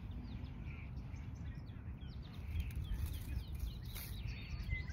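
Small birds chirping, many short high calls that drop in pitch, scattered over a low rumble of outdoor background noise.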